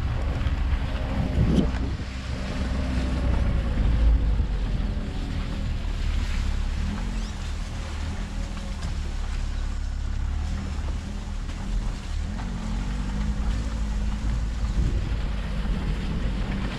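Chevrolet Prisma's 1.4-litre four-cylinder engine running as the car drives slowly over a wet, rutted dirt track, its note rising and falling with the throttle over a low rumble from the tyres, with a thump about a second and a half in and wind noise on the microphone.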